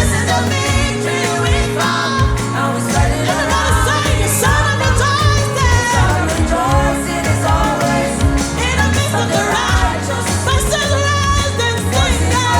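A song: a voice singing a bending melody over a steady bass line and a regular drum beat.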